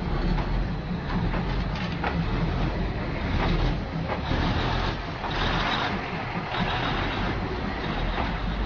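A passenger train rolling slowly past at very close range: a steady low rumble with a few sharp clacks of wheels on the rails, and two bursts of hissing in the middle.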